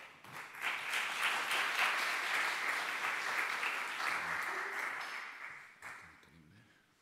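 Audience applauding, building up within the first second and dying away about six seconds in.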